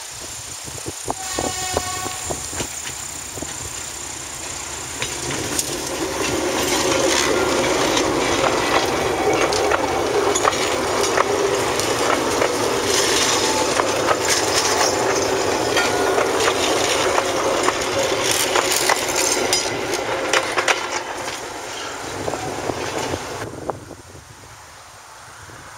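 Lxd2 narrow-gauge diesel locomotive and its train approaching and passing close by. A short horn note sounds about a second in, then the engine runs and the wheels click over the rail joints, loudest in the middle. The sound drops away sharply near the end.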